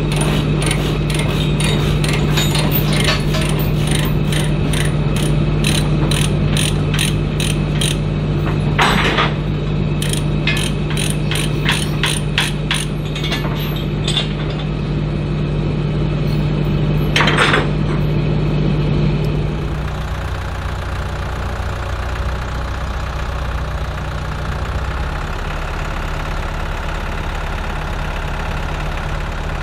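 Ratchet load binder on a chain tie-down clicking rapidly as it is worked loose to release the tram from the trailer, with two longer rattles, over a steadily idling engine. From about two-thirds in only the idling engine is heard.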